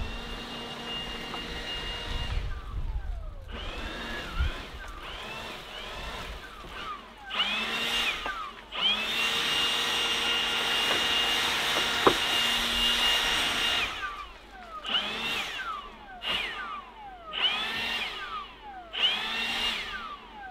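Handheld leaf blower blowing pine needles off a metal roof. It whines up and winds down in repeated short bursts, with one steady run of about five seconds in the middle.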